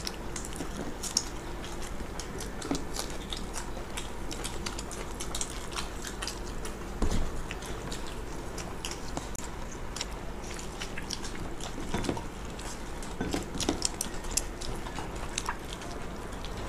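Several people eating by hand: chewing and mouth noises, puris being torn, and many small irregular clicks of fingers and food on plastic plates, over a steady low hum. A louder knock about seven seconds in.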